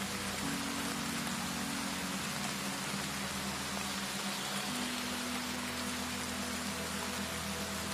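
Steady rain falling, an even hiss, with low held tones underneath that shift in pitch about half a second in and again near five seconds in.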